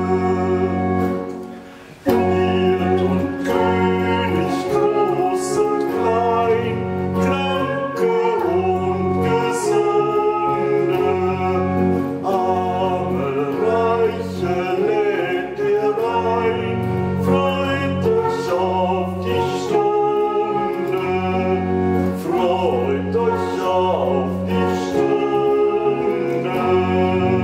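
Church organ playing a hymn with voices singing along. The music dips about a second in and starts again at two seconds.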